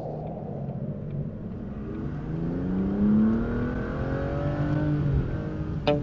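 Car engine accelerating hard over a low rumble, its pitch climbing for a few seconds and then dropping shortly before the end. Music comes in at the very end.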